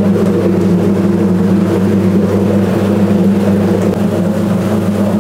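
Onion peeling machine running: its motor hums steadily while small onions churn inside the drum and pour out of the discharge chute.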